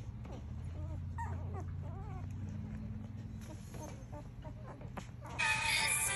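Newborn pit bull puppies, five days old, squeaking and whimpering in short high chirps, with a louder, longer squeal near the end.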